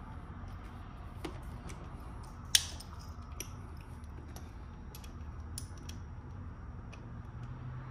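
Scattered light metallic clicks and taps of a small hand wrench with a T30 Torx bit working on motorcycle fairing bolts, with one sharper click about two and a half seconds in. A steady low hum runs underneath.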